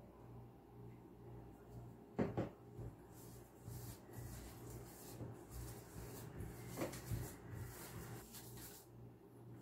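Hands mixing grated cassava in a steel bowl, a faint rustling, with two short knocks, the louder about two seconds in and another near seven seconds. A low steady hum sits underneath.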